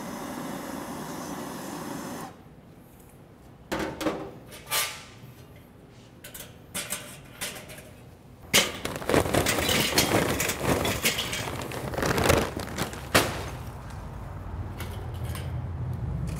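A handheld butane torch hisses steadily as it lights a fire-starter cube, cutting off abruptly about two seconds in. Scattered knocks follow, then several seconds of dense clattering as lump charcoal goes into a metal chimney starter, easing into a low steady noise near the end.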